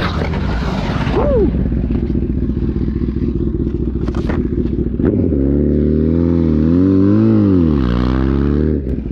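Rider in leathers sliding across asphalt after a low-side motorcycle crash: a rough, continuous scraping rush with a sharp knock about four seconds in. Then a sport motorcycle's engine runs for about three and a half seconds, its pitch wavering up and down, and cuts off shortly before the end.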